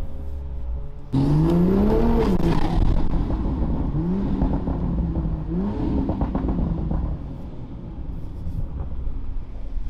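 Toyota A90 Supra with a decatted, straight-through titanium exhaust, revving up in three short pulls, each rising in pitch and then dropping back, before easing to a lower, steady run.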